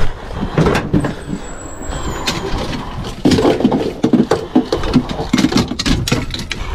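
A landing net being pulled out of a pickup truck's bed, with a quick run of knocks and scrapes from about halfway through, among hurried footsteps on concrete.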